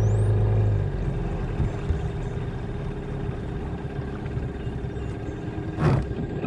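Small boat's motor running with a steady hum, then dropping to a lower, quieter hum about a second in as the boat slows. A single sharp knock comes near the end.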